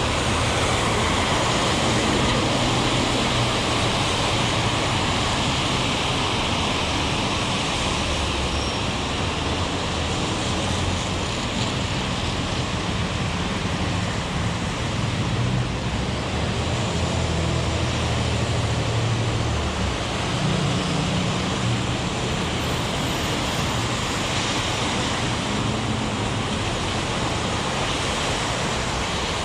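Heavy rain falling steadily, with road traffic rumbling past, most strongly in the middle stretch.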